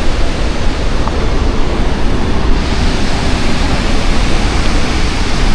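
Steady, loud rushing noise of the Gaganachukki waterfall on the Kaveri river, heard close up.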